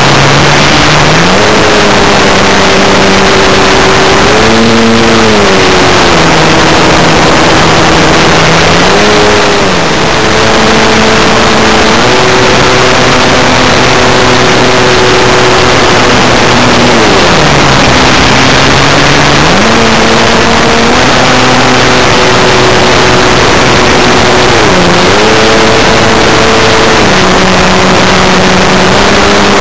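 Electric motor and propeller of a Multiplex Acromaster RC plane heard from on board. Its tone drops and rises several times as the throttle changes, under heavy wind rush on the microphone.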